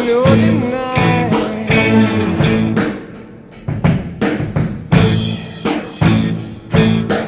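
Rock song with drum kit, guitar and singing; the music drops back for about a second near the middle, leaving mostly drum hits, then comes back in full.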